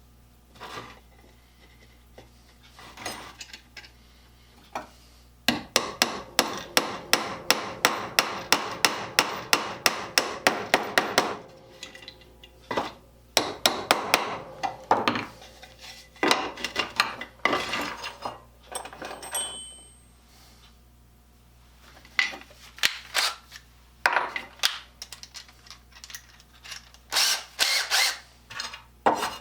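Hammer striking metal: a fast, even run of light blows, about four a second for some six seconds, then slower, irregular knocks and taps with short stretches of scraping.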